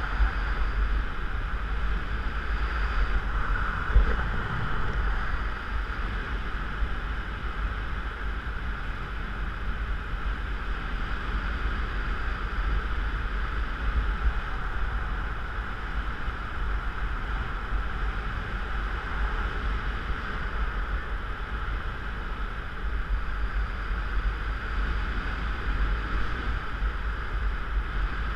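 Airflow buffeting the microphone of a camera on a paraglider in flight: a steady low rumble with a hiss of rushing air. A brief knock comes about four seconds in.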